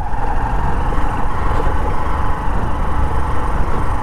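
Hero Passion commuter motorcycle's single-cylinder engine running steadily at low speed on a rough, muddy dirt track.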